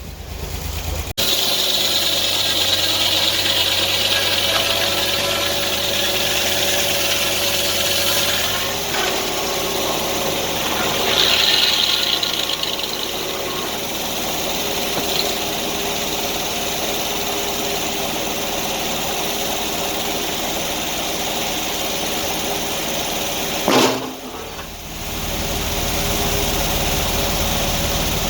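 Portable band sawmill's engine running steadily under load while the blade cuts through an oak log. About 24 s in there is a brief sharp sound followed by a short drop in level.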